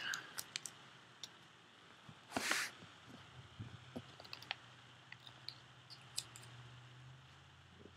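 Faint clicks and taps of a clear plastic iPod Touch box being handled and opened, with one brief scraping rustle about two and a half seconds in.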